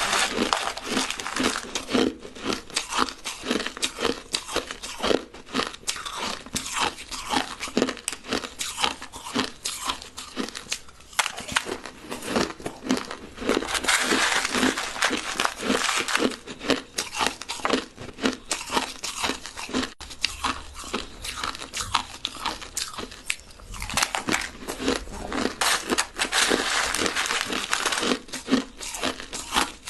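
Crushed ice being bitten and chewed close to the microphone: a dense, irregular crunching and crackling that rarely pauses.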